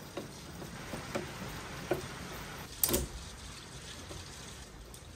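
A few light clicks and taps from a screwdriver and hands working at a solar inverter's wiring terminals, with one louder sharp clack about three seconds in.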